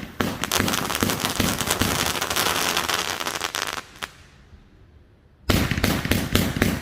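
221-shot "Monster Trucks" firework cake going off: a dense run of crackling for nearly four seconds, a short lull, then rapid separate reports starting again about five and a half seconds in.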